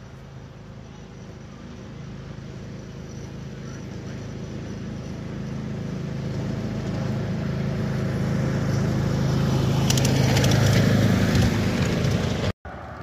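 A ride-on miniature railway train approaching along the track, its low rumble growing steadily louder, with a run of quick clicks as it comes close; the sound cuts off suddenly near the end.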